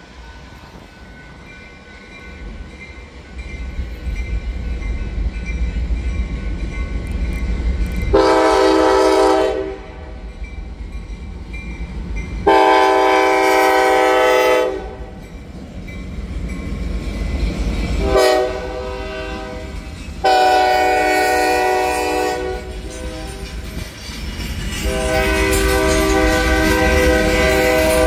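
Norfolk Southern GP38-3 diesel locomotive approaching and passing, its rumble building, while its multi-note horn sounds two long blasts, a short one and a final long one: the standard grade-crossing signal. Freight cars roll by behind it, clicking over the rail joints.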